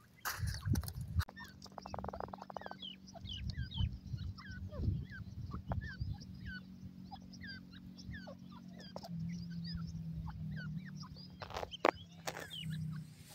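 Many short, scattered chirping bird notes, over a low rumble on the microphone and a faint steady hum. There is a brief buzzy rattle about two seconds in and a couple of sharp bursts near the end.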